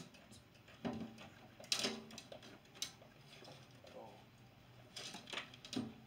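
Scattered clicks and knocks of something small being handled, the loudest a little under two seconds in, with a faint voice in the background.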